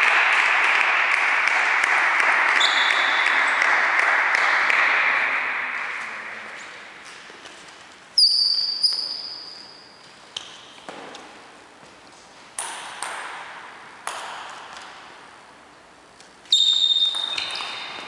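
Celluloid table tennis ball bouncing, each bounce a sharp click with a short, bright ringing ping, a handful of single bounces spread apart, then a rally starting near the end. A loud rushing noise fades out over the first six seconds.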